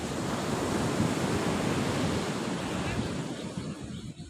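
Ocean surf breaking on a sandy beach: a wave crashes and washes up the shore, swelling about a second in and slowly dying away, with some wind on the microphone.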